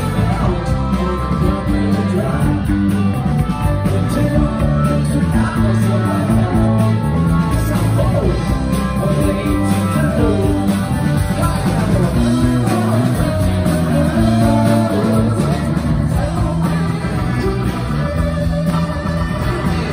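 Live rock band playing a song: electric and acoustic guitars, keyboards and drums, with a lead vocal singing over them.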